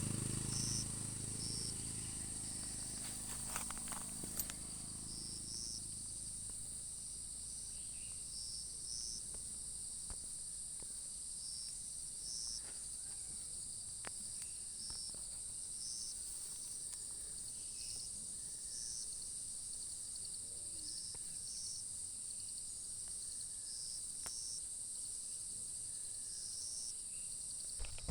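Insects droning steadily at a high pitch, with short chirps repeating about once a second over the drone.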